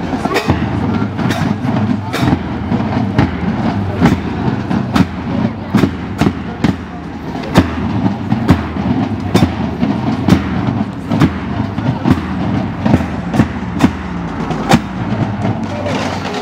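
Marching bass drums beaten in a steady march rhythm, about one to two strikes a second, over the chatter of a walking crowd.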